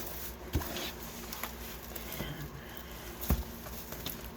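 Handling noises from a diamond painting canvas being moved and unrolled: light rustling and small clicks, with a soft thump about half a second in and a firmer one about three seconds in.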